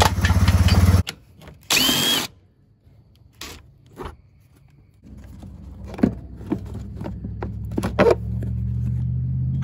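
A Yamaha Bear Tracker 250's single-cylinder four-stroke engine running for about a second and then cut off, followed by a short whir of a cordless drill with a rising whine. Then clicks and knocks of parts being handled over a steady low hum.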